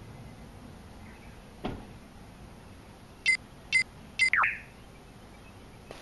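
Three short high-pitched beeps about half a second apart, the last trailing into a quick falling squeak; a soft knock is heard about a second and a half earlier.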